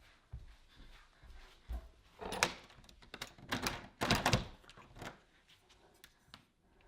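A door being handled indoors: clicks and thuds with two louder bursts of rattling, about two seconds in and again around four seconds in.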